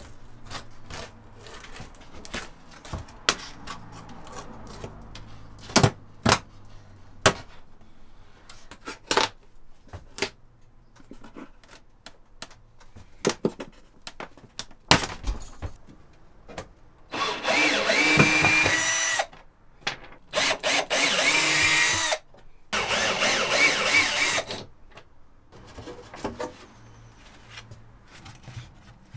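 Scattered sharp clicks and knocks as old trim is pried off camper walls with a thin metal bar, then a power drill run in three bursts of about two seconds each past the middle.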